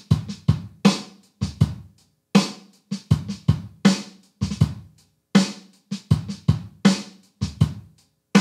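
Logic Pro X's Brooklyn software drum kit playing a programmed MIDI groove at 80 BPM: kick, snare and hi-hat in a steady pattern, with quieter ghost notes between the main hits. The kick and hi-hat sit slightly behind the beat for a laid-back pocket.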